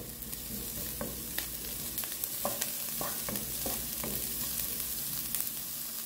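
Chopped onion and garlic sizzling in olive oil in a non-stick frying pan, a steady hiss with a wooden spoon stirring and scraping against the pan in a series of short strokes.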